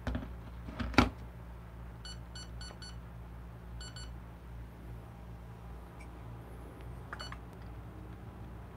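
A sharp knock about a second in, then electronic beeps from a digital coffee scale being reset and tared: four short beeps in quick succession, then one more a second later.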